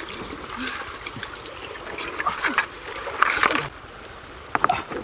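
Hands splashing and rummaging in shallow river water among stones, with scattered sharp clicks of stones knocking together; the splashing peaks about three seconds in, and a few more stone clacks come near the end.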